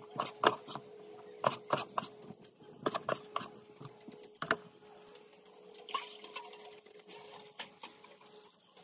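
Irregular sharp taps of a knife and raw pork pieces on a wooden cutting board, most of them in the first half, followed by fewer, quieter handling sounds.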